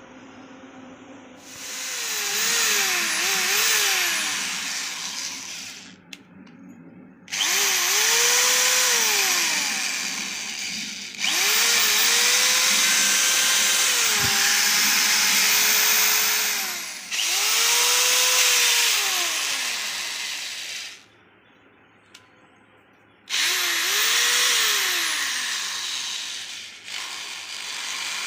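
Eastman EKSD-10 corded 350 W electric screwdriver motor run in five bursts. Each time the motor whine rises in pitch as it speeds up and falls away as it slows, with short pauses between runs.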